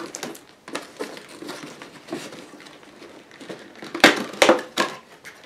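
Tape being peeled off a cardboard box, with crinkly tearing and scraping and a few louder sharp rips about four seconds in.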